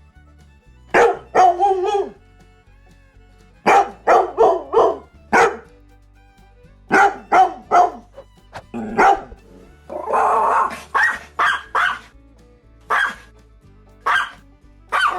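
A dog barking in short runs of two to five barks with brief pauses between, over faint background music.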